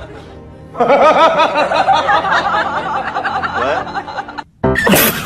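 Music. Near the end the sound changes abruptly to a louder, noisier mix.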